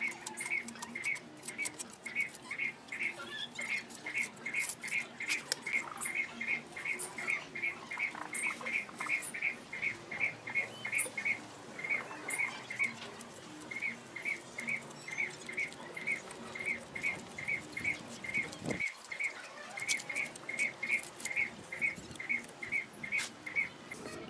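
A bird calling in short high chirps, repeated evenly about three times a second, with two brief pauses near the middle. Under it, light scraping and tapping of a steel trowel working wet mortar.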